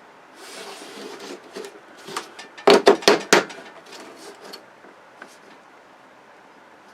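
Hand tools and parts being handled while a flat-screen TV is taken apart: a brief rustle, then a quick run of sharp knocks and clacks about three seconds in, followed by a few light ticks.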